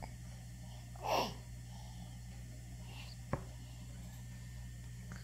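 A baby's short breathy gasp about a second in, followed a couple of seconds later by a single small click, over a steady low hum.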